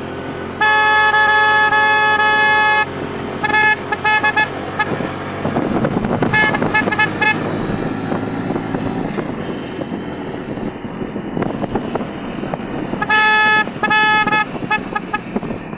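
Motorcycle horn honking: one long blast about a second in, then bursts of short rapid toots, and another long blast followed by quick toots near the end. Between the honks, the riding motorcycle's engine, road noise and wind run on.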